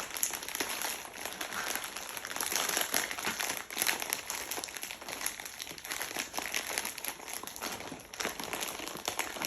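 Plastic packaging crinkling and rustling unevenly as a squishy toy is worked out of it by hand.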